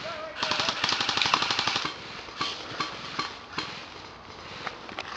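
Airsoft rifle firing a rapid full-auto burst of clicking shots for about a second and a half, followed by a few separate single shots spaced under a second apart.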